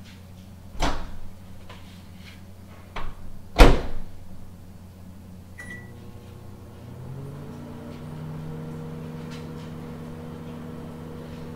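Over-the-range microwave oven: a few sharp clacks as the door is opened and shut, the loudest as it closes, then a short keypad beep. The oven then starts heating with a hum that rises in pitch for a moment and settles steady.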